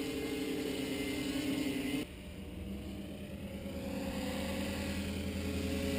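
Small electric multirotor T-copter flying, its brushless motors and propellers giving a steady buzzing hum. The sound drops suddenly about two seconds in, then its pitch slowly sags and rises again.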